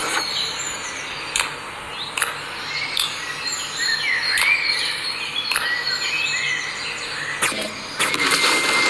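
Outdoor ambience of birds chirping, with short gliding calls, over a steady insect-like hiss, broken by a sharp click every second or so.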